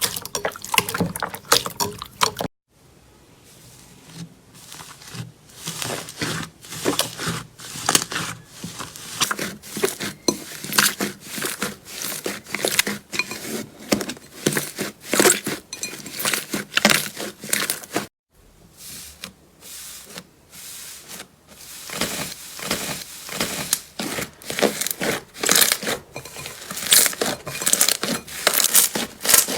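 Slime being squeezed and poked by hand, giving dense, irregular crackling and popping clicks. The sound cuts out briefly twice.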